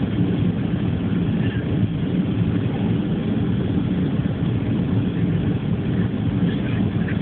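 Airliner cabin noise during landing: a steady low roar.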